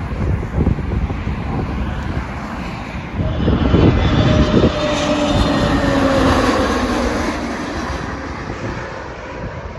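Jet engines of an SAS twin-engine airliner on landing approach, passing low overhead. The engine noise swells about three seconds in, is loudest in the middle with tones that slide down in pitch as it goes over, then fades away. Wind buffets the microphone at first.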